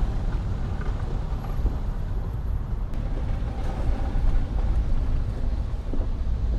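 Loud, steady low rumble of a car driving in heavy rain, with a fainter hiss above it; it starts suddenly.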